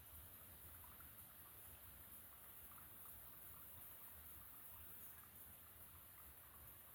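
Near silence: a faint steady hiss and low hum, with a few faint scattered ticks.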